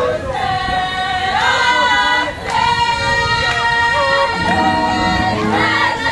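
A group of voices singing together in long held notes that step from pitch to pitch, over crowd noise.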